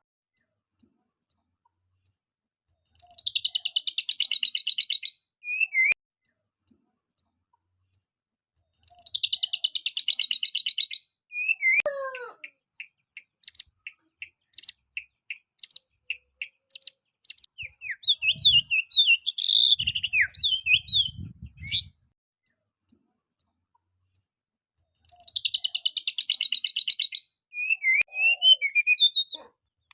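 A young white-rumped shama singing: three long rapid rattling trills, with single sharp chirps between them, a long falling whistle, and a burst of varied whistled notes in the middle.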